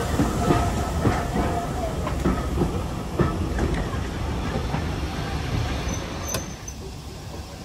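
Heritage passenger coaches rolling past at close quarters, their wheels clacking steadily over the rail joints with a thin squeal in the first couple of seconds. The sound fades as the last coach goes by near the end.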